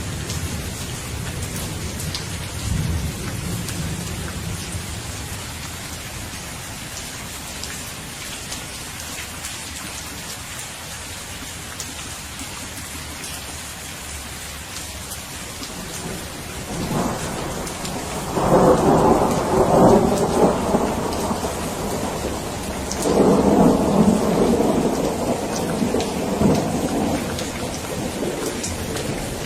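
Steady rain falling during a thunderstorm. A low rumble of thunder fades over the first few seconds, and two loud rolls of thunder, each a few seconds long, come in the second half.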